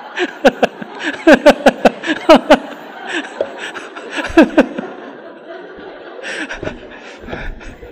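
Laughter in quick runs of short "ha"s, each dropping in pitch. The runs are densest in the first few seconds, with another burst about four and a half seconds in, then tailing off into fainter chuckles.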